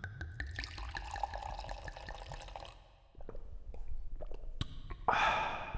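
Liquid pouring and fizzing, full of small bubble pops. It drops away about three seconds in, and a louder burst of fizzing comes near the end.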